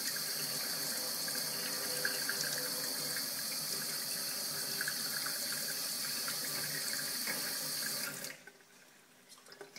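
Kitchen mixer tap running in its spray setting, many fine streams splashing into a stainless-steel sink with a steady hiss. The water sound stops abruptly about eight seconds in.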